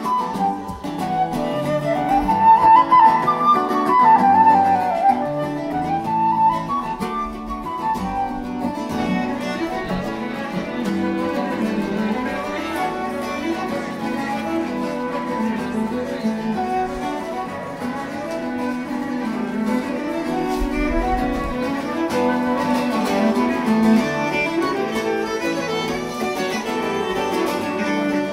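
Live trio of flute, violin and acoustic guitar playing a tune together, with the flute carrying the melody at first.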